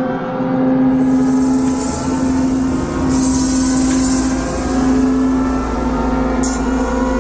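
Dark horror-soundtrack drone: a steady low tone under higher tones that slowly climb in pitch, building tension, with swells of hiss coming in about every two seconds.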